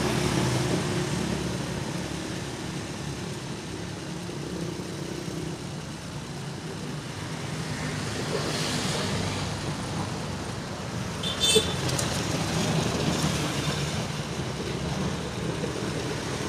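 Road traffic going by: cars and motorbikes passing on the street, with a swell of passing noise midway. A short high beep sounds about two-thirds of the way through.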